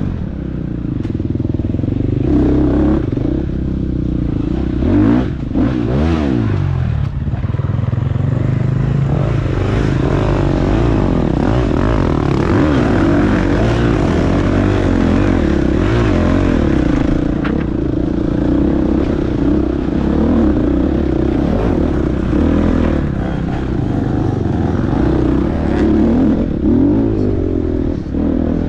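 Four-stroke dirt bike engine, a Husqvarna FX 350, revving up and down without a break as it is ridden through a race course, the pitch climbing and dropping every second or two, with a few knocks about five to six seconds in.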